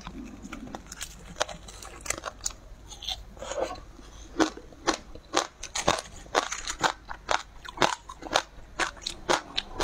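A person biting and chewing something crunchy: a string of sharp, crisp crunches that get louder from about four seconds in, roughly two a second.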